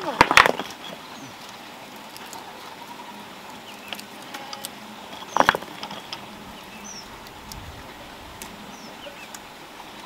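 Sharp knocks on wood: a quick cluster of three right at the start, then a single one about five and a half seconds in.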